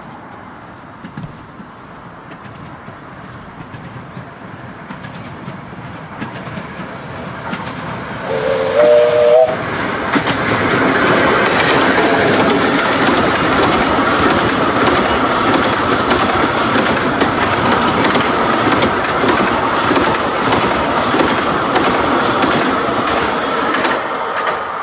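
A 15-inch-gauge steam locomotive and its coaches approaching, the engine giving a short whistle blast about a third of the way in, then running close past with steam exhaust and the wheels clattering over the rail joints, loud and steady until it eases near the end.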